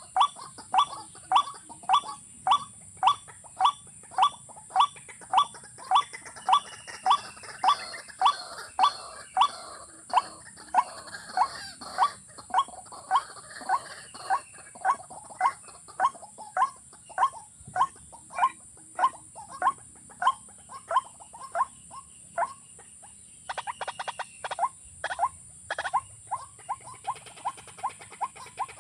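A watercock calling: one short, sharp note repeated steadily about twice a second, with a brief run of rapid clicks near the end.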